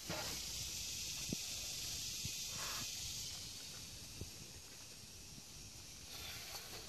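A faint hiss for the first three or four seconds, easing off after, with a few faint taps of a climber's hands and shoes on limestone.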